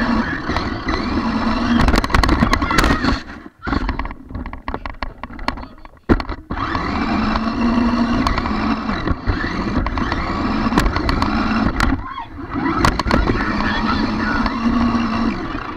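Small electric motor of a toy RC car running with a steady hum as it drives across carpet, with knocks and rattles as it bumps around. The motor drops off for about two seconds starting three and a half seconds in, and briefly again near twelve seconds.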